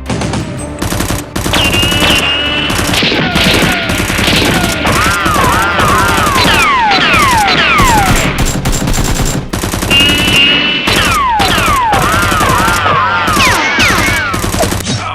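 Rapid gunfire sound effects, dense and continuous, mixed with falling laser-like zaps and short chirping tones. The same sequence of shots and zaps plays twice.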